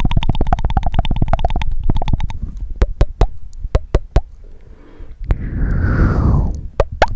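Close-miked mouth sounds: a fast run of wet tongue clicks, then about half a dozen single sharp tongue clicks, then a long breathy mouth sound that falls in pitch and ends in a click.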